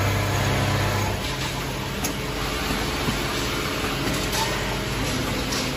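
Automatic sleeping-bag sewing machine running, its gantry sewing head stitching with rapid needle strokes over a steady motor hum. The lower hum drops away about a second in.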